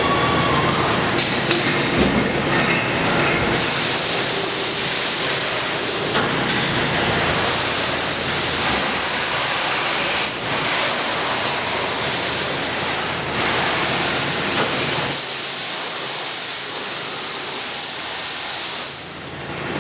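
Steady loud machinery noise with a rushing, hissing character. Stronger bursts of high hiss switch on and off abruptly several times, and the noise falls away shortly before the end.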